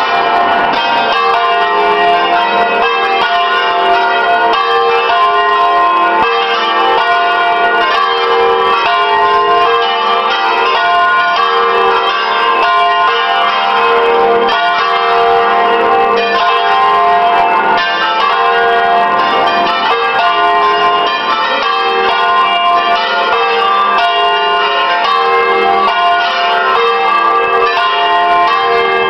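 A six-bell church peal in F3 rung in full plenum, all bells swinging and striking together in a continuous stream of overlapping strokes. It is the full festive ringing that calls the parish to Sunday Mass.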